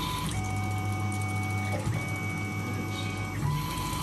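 Tormach PCNC 1100 CNC mill peck-drilling a hole in a metal block: steady spindle and motor whine with a low hum, the whine stepping to a different pitch about every second and a half as the drill pecks down and retracts.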